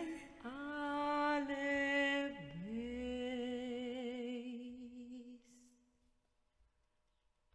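A woman's voice singing long, wordless held notes with vibrato, dipping once in pitch about two and a half seconds in and fading out about five seconds in.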